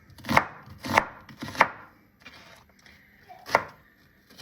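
Knife chopping an onion on a cutting board: three strokes about half a second apart, then one more after a pause of about two seconds.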